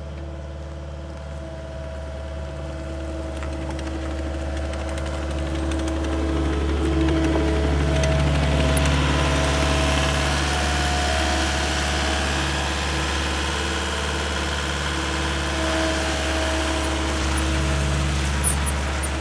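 Cat 257D compact track loader's diesel engine running steadily as the machine drives on its rubber tracks, getting louder as it comes close by about halfway through. A brief sharp tick sounds near the end.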